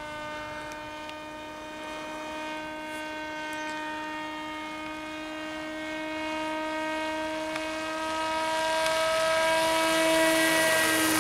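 HobbyKing SuperG RC model airplane flying a pass, its propeller drone a steady pitched tone much like a helicopter's. It grows louder as the plane approaches and dips slightly in pitch near the end as it goes by.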